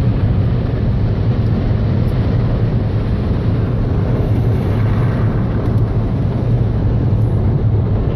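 Automatic car wash air-dryer blowers running, heard from inside the car cabin: a steady, loud, low rush of air like a big plane, blowing the water off the car.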